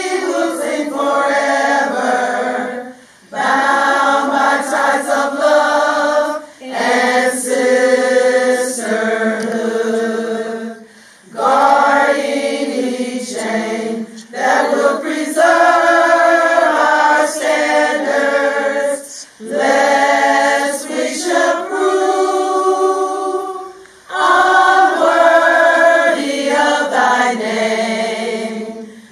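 A group of women singing together unaccompanied, in phrases of about three seconds broken by short pauses for breath.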